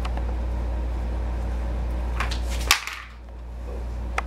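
A sharp knock about two-thirds of the way through, over a steady low hum that cuts out right after it and slowly comes back; a few fainter clicks before it and one short click near the end.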